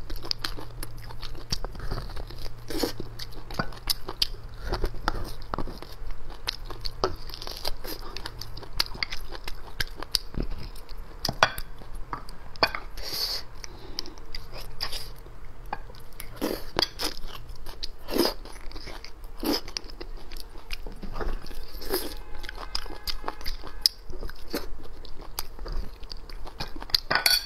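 Close-miked eating of braised beef bone marrow: biting and chewing with many irregular wet clicks and crunches.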